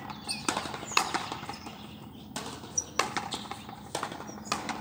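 Frontenis rally: a small rubber ball smacking sharply off racquets, the fronton wall and the floor, about six hits at uneven intervals of half a second to a second.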